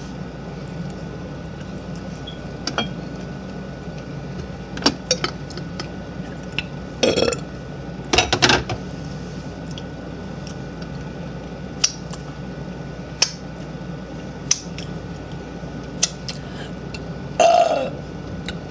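A woman burping a few times, with short burps about seven seconds in, again about a second later, and once more near the end. Scattered light clicks fall between them over a steady low hum.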